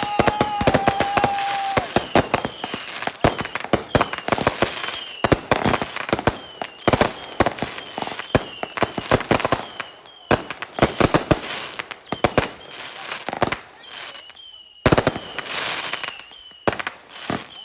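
Consumer fireworks going off in rapid succession: many sharp bangs and crackles packed close together, with a steady whistle for the first two seconds and short falling whistles scattered throughout.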